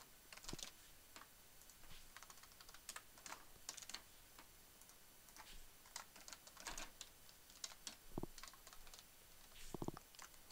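Faint typing on a computer keyboard: irregular runs of key clicks with short pauses between bursts.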